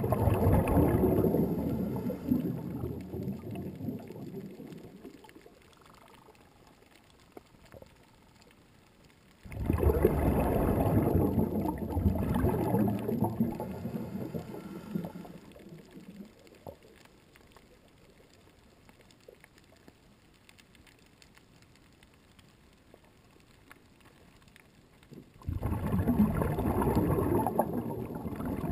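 Underwater gurgling and bubbling in three bursts of several seconds each: one at the start, one about ten seconds in and one near the end, with quiet between.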